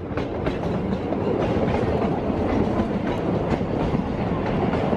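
Narrow-gauge passenger train heard from on board its carriage: a steady rumble of the wheels on the track with frequent clicks and knocks from rail joints.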